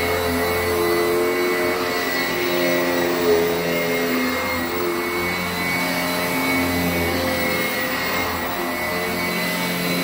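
Sanitaire 886E upright commercial bag vacuum running while pushed back and forth over carpet: a steady motor whine over a lower hum that swells and fades with each stroke.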